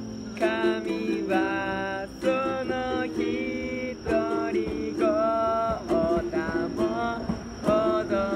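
A worship song performed live: a voice singing a melody over strummed acoustic guitar chords.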